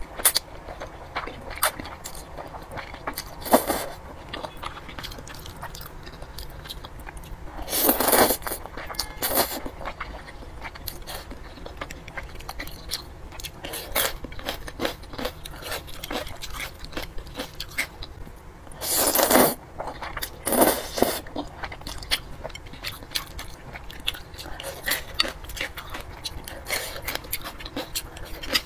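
Close-up eating sounds: a person chewing thick noodles with crunchy bites and wet mouth clicks, with several louder slurps of the noodles, two about a third of the way in and two more past the middle.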